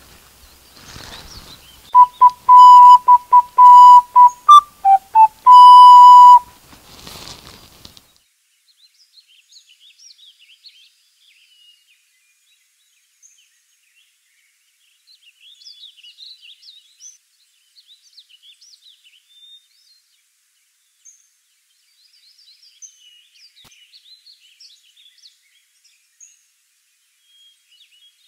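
A loud whistle blown in a run of short notes at one pitch, dipping lower a couple of times and ending on a long held note; afterwards faint bird chirps.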